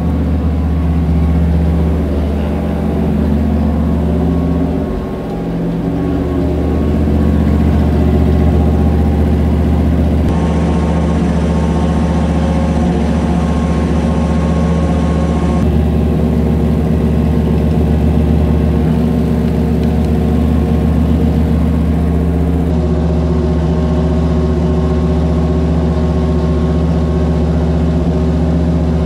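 Chevrolet 327 small-block V8 running at a steady speed on an engine dyno, with a brief drop in level about five seconds in.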